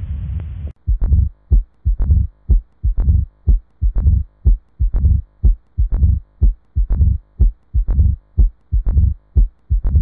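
Recorded stethoscope heart sounds of mitral stenosis: a beat about once a second, each cycle a sharp first sound followed by further clicks, which the lesson teaches as the second sound and the opening snap, with a low rumble between beats. Less than a second in, a continuous heart murmur from the preceding recording cuts off.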